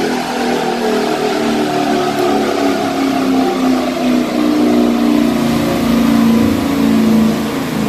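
Dodge Challenger's engine held at high revs under load during a chassis dyno pull, running steadily with its pitch wavering slightly.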